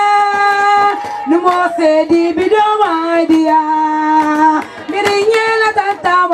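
A high female voice singing a melody of long held notes that slide from one pitch to the next, over sharp percussive beats throughout.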